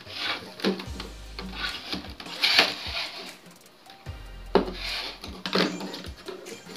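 A clear plastic figure box being handled while its tape is cut with scissors: irregular crinkling, rubbing and snipping of plastic, loudest about two and a half seconds in, with a few dull bumps.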